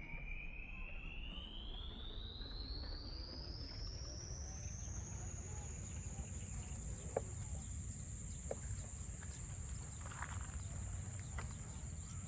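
Open-field outdoor ambience with a steady low rumble of wind on the microphone and a thin high-pitched tone that rises over the first few seconds, then holds steady. A couple of soft clicks come a little past the middle, and a brief faint call near the end.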